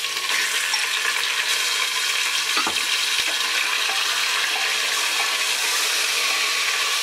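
Mutton pieces sizzling in hot oil with sliced onions in a pressure cooker, turned with a wooden spatula: a steady sizzle with a few light knocks of the spatula against the pot.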